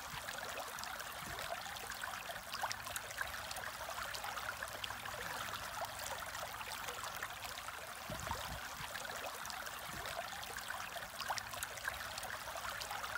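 Aquarium water bubbling and trickling steadily from a stream of rising air bubbles, with a fine crackle of tiny pops throughout.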